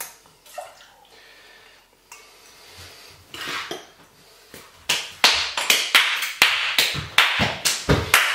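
Fast, even run of sharp taps and clinks of hard kitchen ware, about three a second, starting about five seconds in.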